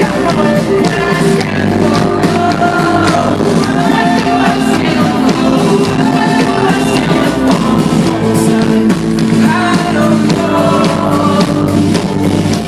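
A live pop-rock band playing loudly through a PA, with steady drum hits under sustained chords and a sung vocal line.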